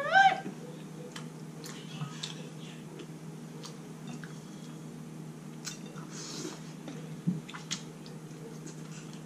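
Close-miked chewing and wet mouth sounds of someone eating a saucy seafood boil, with scattered small clicks and taps as a wooden spoon works in a glass bowl. A brief rising hum of the voice right at the start.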